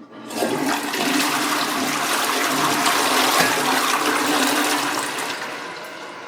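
Flush toilet flushing: a sudden rush of water starts just after the opening, runs loud and steady for about five seconds, then eases off near the end.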